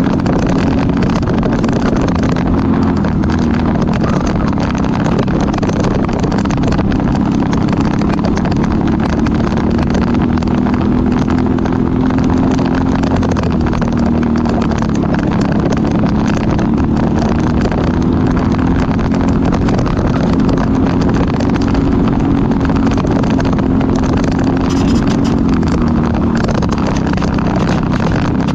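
Briggs & Stratton LO206 four-stroke single-cylinder kart engine running hard at race speed, heard onboard. Its pitch dips gently a few times as the kart slows for corners, then climbs again.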